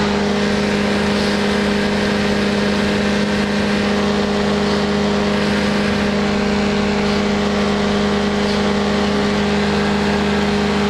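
Powered parachute's engine and propeller droning steadily at a constant pitch in cruising flight, with a steady hiss over it.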